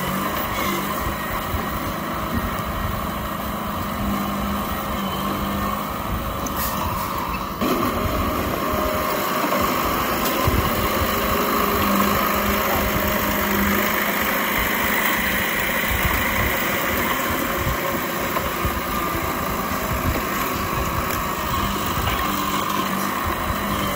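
Diesel engine of an old Komatsu D31P crawler bulldozer running steadily, growing a little louder about a third of the way through.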